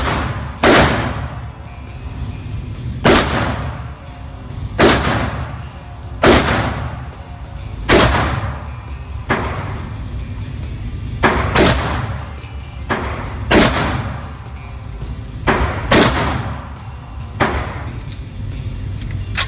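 AR-15-style rifle fired shot by shot on an indoor range, about fifteen shots at an uneven pace, mostly one to two seconds apart with a couple of quick pairs. Each shot rings briefly off the range walls.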